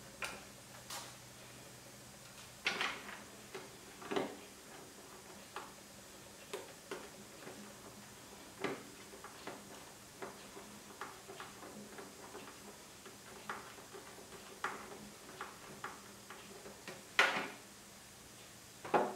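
Scattered light clicks and knocks of plastic motorcycle fairing panels and their fasteners being handled and fitted by hand, coming at irregular intervals, with the loudest knock near the end.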